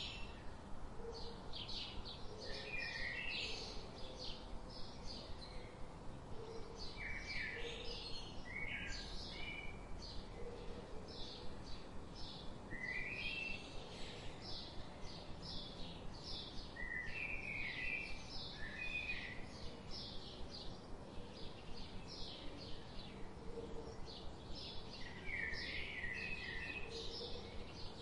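Small songbirds chirping steadily: a continuing run of short, high chirps, several a second, with occasional quick clusters of lower chirps.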